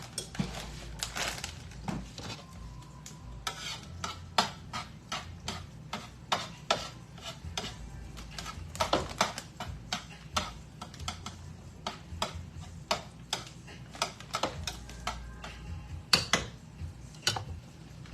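Metal utensil clinking and scraping against cookware in irregular strikes, about one or two a second.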